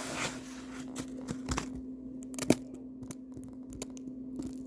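Scattered light clicks, taps and rustles from handling a toy play-sand set and its box, with one sharper tap about halfway through. A faint steady hum runs underneath.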